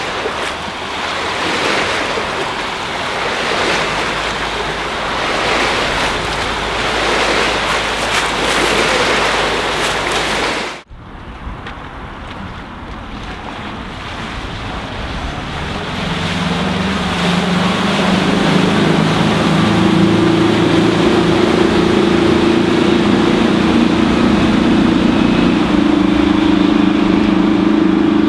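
Wind buffeting the microphone over the wash of waves, cut off suddenly about eleven seconds in. Then a boat's engine drone builds steadily into a low, even hum that holds loud to the end: a sports cruiser's Volvo Penta KAD32 diesel stern drive running under way.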